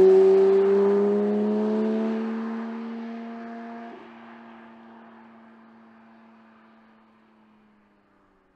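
Porsche 992 GT3 Touring's naturally aspirated 4.0-litre flat-six accelerating away, its engine note rising slowly in pitch and fading steadily into the distance until almost gone at the end.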